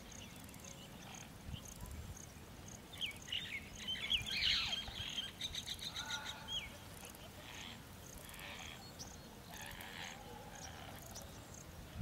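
Small birds chirping, with short gliding calls and a quick trill that is loudest around four to six seconds in, over faint regular high ticking and a low rumble.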